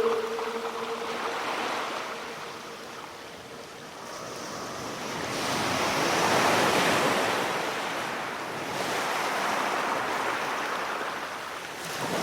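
Ocean waves washing in slow swells of surf noise, building to a peak about halfway through and easing off again near the end.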